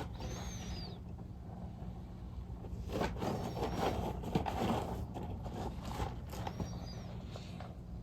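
Outdoor ambience: a small bird chirping a short high call about every three seconds over a steady low hum, with a stretch of rustling near the middle.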